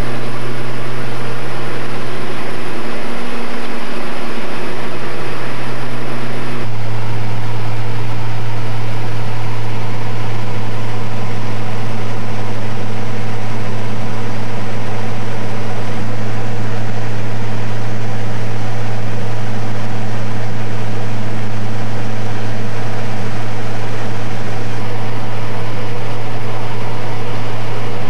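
Light aircraft's propeller engine running at a steady cruise, a loud drone heard inside the cabin. About six and a half seconds in, the hum steps abruptly to a slightly lower, stronger tone and then holds steady.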